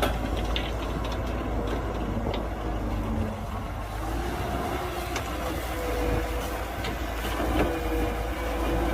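Diesel engine of heavy earthmoving machinery running with a deep, steady rumble, its pitch shifting slightly now and then, with a few short metallic knocks and clanks scattered through.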